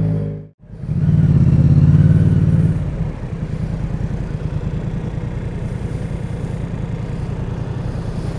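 Motorcycle engine heard from the rider's seat. It cuts out completely for a moment about half a second in, runs strongly for about two seconds, then drops about three seconds in to a steady, rapidly pulsing idle while stopped in traffic.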